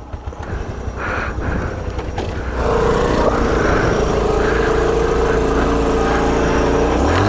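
Honda CT110 postie bike's small single-cylinder four-stroke engine, heard from the rider's seat. It runs unevenly at low revs for the first couple of seconds, then gets louder and holds a steady note as the bike pulls away, rising in pitch near the end as it accelerates.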